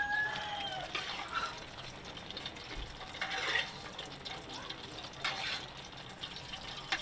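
Chicken, potato and soy–pineapple-juice braise simmering in a pot, a steady bubbling of liquid, with a few light knocks. A rooster crowing in the background ends just after the start.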